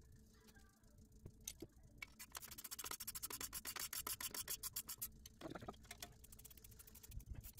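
Faint hand-tool work on a minivan's front suspension. After a quiet start comes a run of rapid, evenly spaced clicks and rasping lasting about three seconds, then a shorter run near the end.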